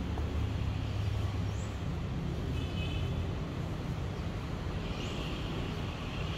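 Steady low rumble of outdoor station and vehicle background noise, with a brief high tone about two and a half seconds in and a higher hiss joining near the end.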